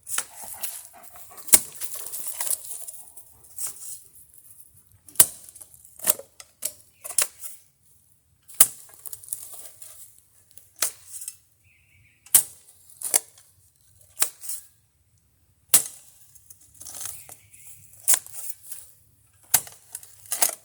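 Digging by hand into hard ground: a metal digging blade strikes the dirt again and again at irregular intervals of about one to two seconds, with short scraping between strikes.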